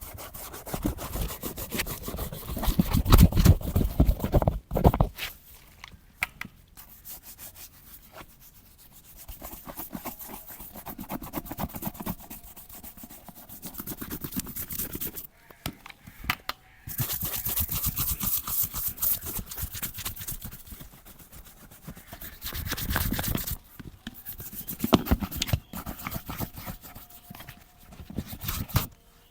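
Leather boot being scrubbed and rubbed during cleaning, in quick back-and-forth strokes that come in several stretches separated by brief pauses.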